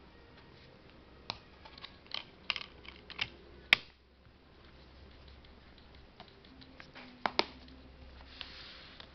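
Hard plastic clicks and taps of a Blu-ray disc and the clear plastic tray of a steelbook case being handled, with one sharp snap a little under four seconds in and a close pair of clicks later on, followed by a brief rustle.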